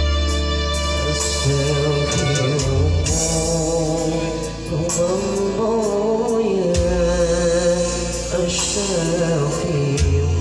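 Music with a singer holding long, wavering notes over a steady bass line and light percussion.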